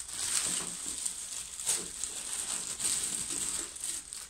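Clear plastic wrapping crinkling and rustling as a bagged laptop carrying case is handled, in irregular crackles.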